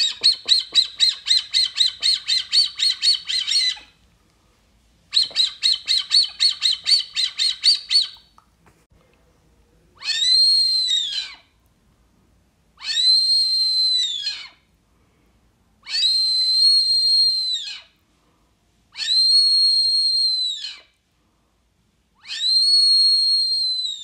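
Brazilian teal whistle calls, sounded as a lure to draw the ducks in: two runs of quick, repeated high whistles, about four a second, then five separate long, steady whistles about three seconds apart.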